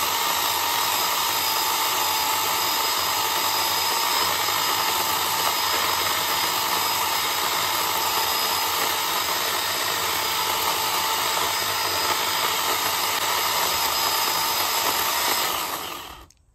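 Small electric chainsaw running steadily with a constant whine as its chain cuts into a tree trunk. The motor winds down and stops near the end.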